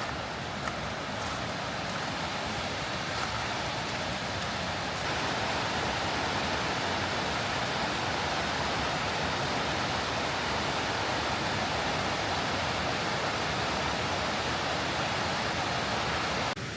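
Steady rush of a waterfall and its creek, growing louder about five seconds in, then dropping away abruptly just before the end.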